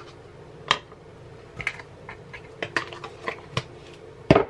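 Light clicks and knocks of a measuring spoon and a baking powder can being handled over a bowl, with a heavier knock near the end as something is set down on the stone countertop. A steady low hum runs underneath.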